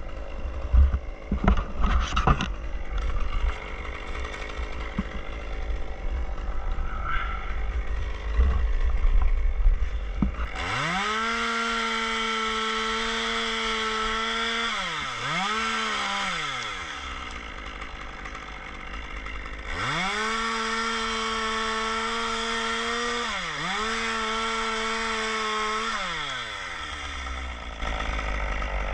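Two-stroke chainsaw running at full throttle twice for about six seconds each, the engine note dipping briefly partway through each run before falling back to idle. Before the first run, several sharp knocks over a low idle.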